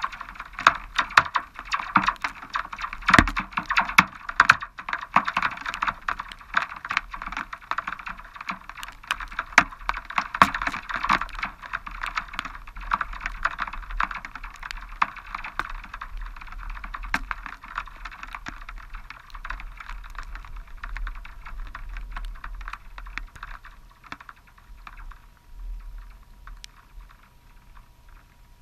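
Rain from a passing supercell pattering densely on a hard surface close to the microphone, a fast irregular stream of ticks over a steady hiss, easing off toward the end.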